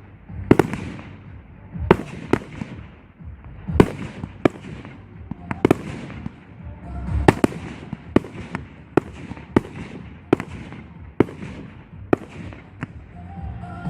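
Fireworks display: aerial firework shells bursting one after another, sharp bangs every half second to a second or so, each followed by a low rumbling echo.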